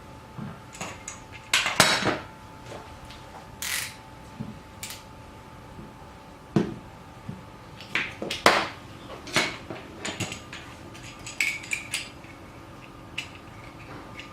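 Kitchen utensils being handled, with irregular clinks and knocks of hard parts set down or fitted together, about a dozen in all.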